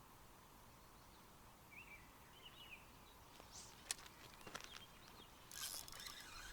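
Quiet lakeshore ambience with a couple of faint bird chirps a few seconds in, followed by a few sharp clicks and a brief rustling burst near the end.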